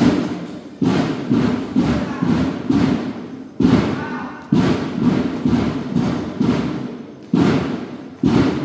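A school banda de guerra's drums beating a march cadence for the flag ceremony: sharp, heavy drum hits, about two or three a second.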